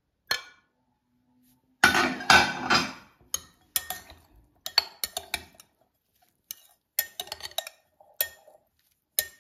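Metal spoon scraping and clinking against a glass mixing bowl as a couscous salad is stirred. A loud scraping clatter comes about two seconds in, followed by a string of sharp clinks.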